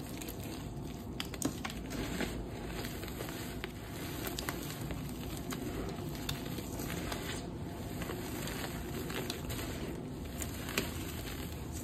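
Dry, dusty black reformed gym chalk chunks being crumbled and crushed by hand: a steady crunchy crackle with many small sharp snaps as the pieces break.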